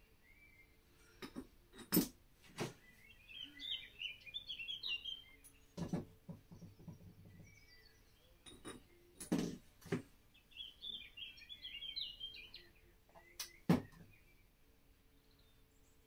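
Several sharp metallic clinks and knocks as engine parts and bolts are handled on a workbench. A small bird twitters in two short, quick phrases in between.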